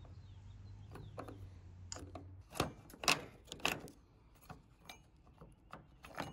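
Clicks and knocks of metal and plastic parts being handled as a bowl-ring tie-down assembly is worked out of a pickup bed's stake pocket. There are three louder knocks between about two and a half and four seconds in, then lighter ticks.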